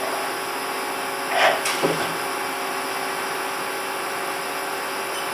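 2007 Haas SL20 CNC lathe running with a steady machine hiss and hum. About a second and a half in there is a short louder whir, followed by two quick clicks.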